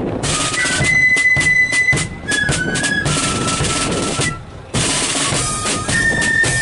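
Marching flute band playing: flutes carry the melody over snare drums, a bass drum and cymbals. The music drops away briefly about four and a half seconds in, then starts again.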